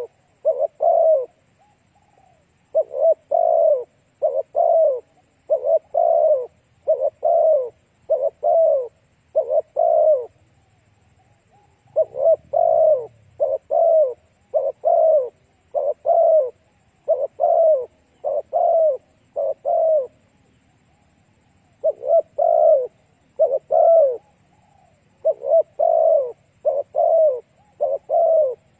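Spotted dove (cu gáy) cooing: runs of short, evenly spaced coos, about one and a half a second, broken every several seconds by pauses of one to two seconds.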